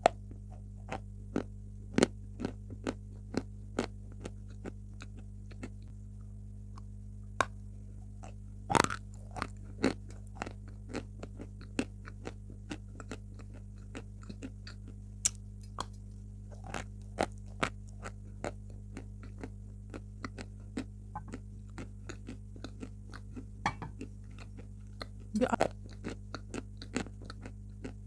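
White chalk being bitten and chewed close to the microphone: irregular sharp crunches and crumbly clicks, with a louder burst of crunching about nine seconds in and another near the end, over a steady low hum.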